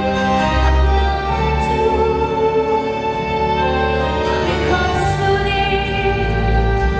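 Show music played over an arena sound system: sustained instrumental tones with a singing voice and a heavy bass.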